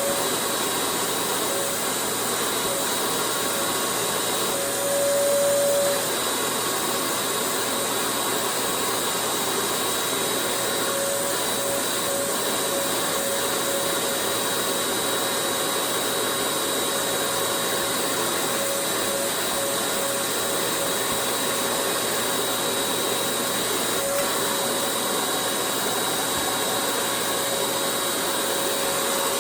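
Vacuum motor running steadily with a high whine, clearing dust out of a clogged vacuum filter. It briefly gets louder and the whine strengthens about five seconds in.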